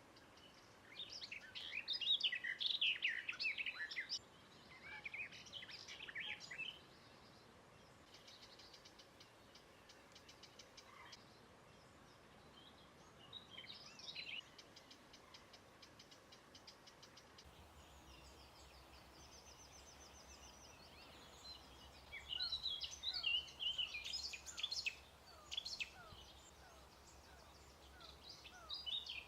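Songbirds singing in short loud phrases of jumbled, rapid notes, separated by quieter pauses. A faint low hum comes in about halfway.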